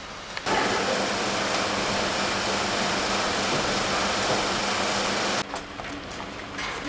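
Loud, steady rushing noise from industrial equipment at a boiler repair site, over a low steady hum. It starts abruptly about half a second in and cuts off about five seconds later.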